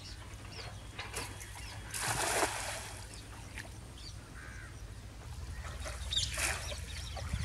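A cast net lands on shallow pond water with a splash about two seconds in, then water sloshes and drips as the net is hauled up near the end. Birds call now and then.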